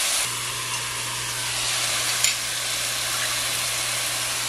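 Onion, garlic and curry paste sizzling steadily in oil in a cast iron pot on low heat. A faint low hum runs underneath, and there is a single click about two seconds in.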